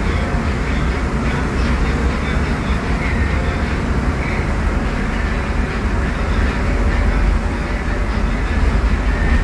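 Scania DC09 five-cylinder diesel engine of a Scania K250UB midibus running under way, with road noise, heard from the rear of the passenger cabin as a steady low rumble.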